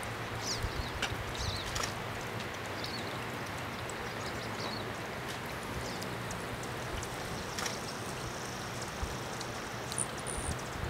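Hummingbirds at a feeder giving short, high, thin chirps and chips, several in the first few seconds and a few more near the end, over a steady rushing background like running water.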